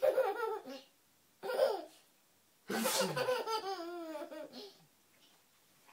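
Baby laughing hard at an adult's fake sneezes, in three bursts: a short one at the start, another about a second and a half in, and the longest just before halfway through.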